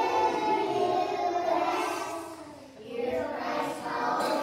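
A group of preschool children singing together in unison, with a short break between phrases about two and a half seconds in.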